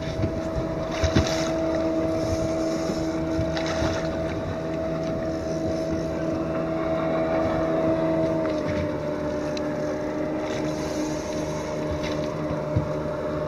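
Boat motor running at a steady low speed, its pitch stepping down slightly about two-thirds of the way through, with short gusts of wind noise on the microphone.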